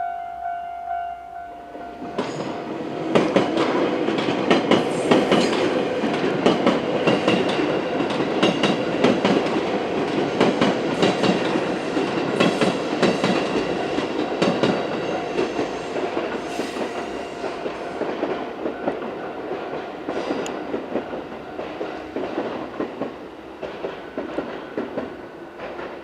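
A level-crossing warning bell rings in a repeating tone for about the first second. From about two seconds in, a six-car 221 series electric multiple unit passes close by, its wheels clattering rapidly over the rail joints; the sound slowly fades towards the end.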